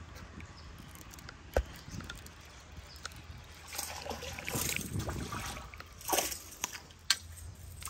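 Water splashing and sloshing at the water's edge in irregular surges, with two sharp knocks, one early and one near the end.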